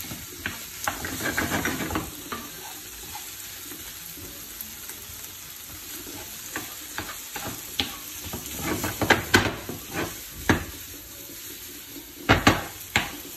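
Chopped sausage, green pepper and onion sizzling in a frying pan while being stirred, the utensil scraping and knocking against the pan. The knocks come in quick runs, the loudest in the last second or so.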